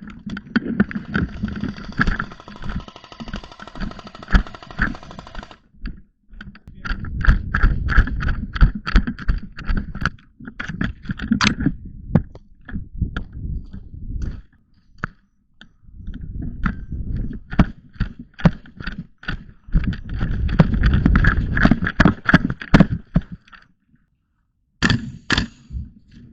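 Airsoft gas blowback rifle fire: rapid clattering shots in four long strings, with breaks of about a second or two between them.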